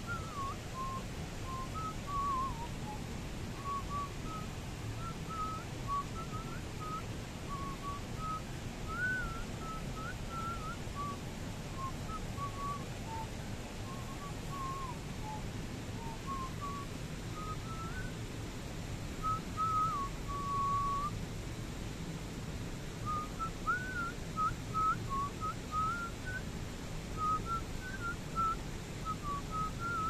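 Someone whistling a meandering tune of short sliding notes, with one longer held note about two-thirds of the way through, over a steady low background noise.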